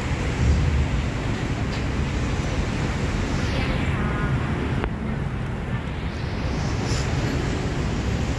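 Steady, low rumbling outdoor background noise of a street market, like wind on the microphone and passing traffic, with one light click about five seconds in.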